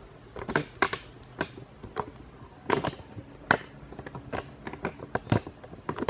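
Irregular plastic clicks and knocks as an Arno Silence Force table fan, switched off, is handled and its head tilted on its stand.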